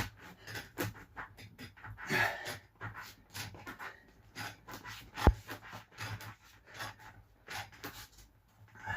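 Short, irregular scraping and rustling as stiff lino is pushed down into the edges with a carpet fitter's bolster, with one sharp knock about five seconds in.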